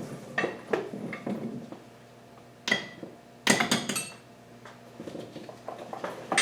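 Metal hand tools and bolts clinking and clattering as they are handled and set down, a series of separate sharp clinks with short ringing, the loudest cluster about three and a half seconds in.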